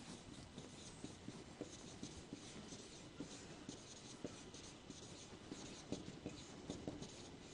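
Faint scratching of someone writing a word on a classroom board, in short irregular strokes with a few light taps.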